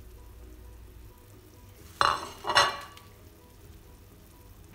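Two loud ringing clinks about half a second apart, a wok lid knocking against cookware, over the faint steady sound of a broth simmering in a wok.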